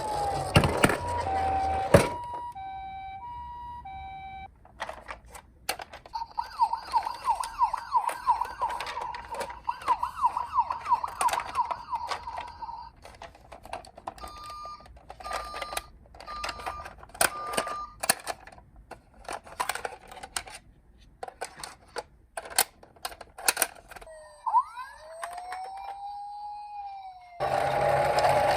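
Toy minicar emergency-vehicle sirens sounding one after another. A two-note hi-lo ambulance call comes first, then a fast warbling wail, four short beeps on one note, and a slow rising-and-falling sweep, with a louder siren starting near the end. Sharp plastic clicks from the toys being handled come in between.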